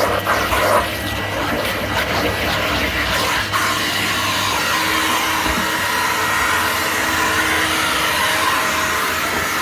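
Numatic Henry cylinder vacuum cleaner running steadily with a whooshing suction noise, with a few light knocks in the first few seconds as the nozzle works over the stairs.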